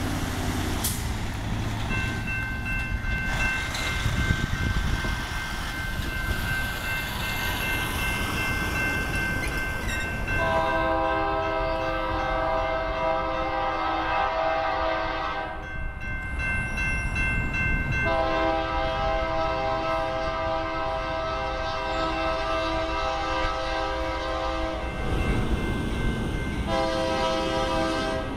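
Horn of a GE C44-9W diesel locomotive blowing long blasts for a grade crossing: the first about ten seconds in, a longer second one after a short gap, and a third beginning near the end. A crossing warning bell rings steadily from about two seconds in.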